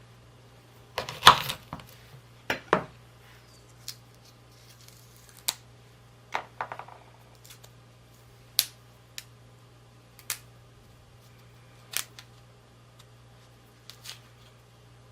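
Knife cutting and prying off chestnut shells: irregular sharp cracks and clicks every second or so, the loudest cluster about a second in.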